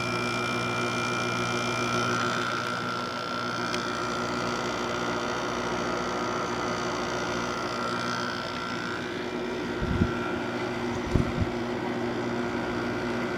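2006 General Electric 5150 BTU window air conditioner running, its LG compressor humming steadily under the fan's airflow; the compressor sounds healthy. Two brief low thumps come about ten and eleven seconds in.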